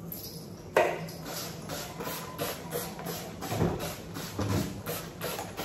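Kitchen cleaning sounds: a sharp knock about a second in, then a run of quick, regular rubbing strokes, about three a second.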